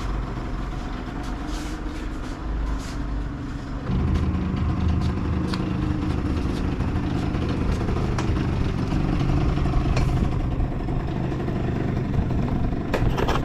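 Yamaha Zuma 50cc two-stroke scooter engine idling steadily while it warms up, its idle a little low; it gets louder about four seconds in, with a few light clicks over it.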